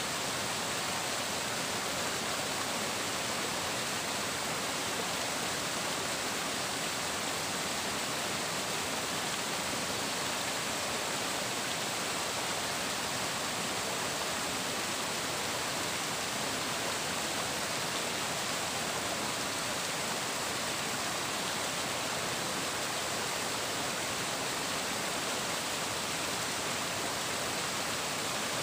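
Water flowing and splashing with a steady, even rush that never changes.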